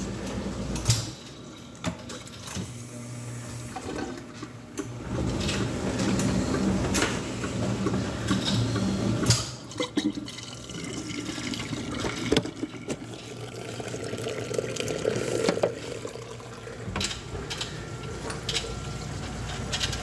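Dishwasher pumping out: water rushing and gurgling down the sink drain through the garbage disposal. A steady low hum runs underneath and stops about halfway, with a few sharp knocks.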